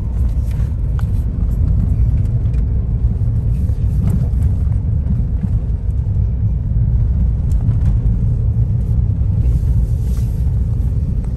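Steady low rumble of a Ford Bronco driving along a dirt trail, heard from inside the cabin: engine and tyre noise on the unpaved track, with a few faint ticks.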